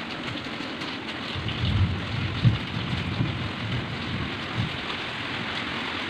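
Steady rain hiss with a few low rumbles a second or two into the sound and again near the middle.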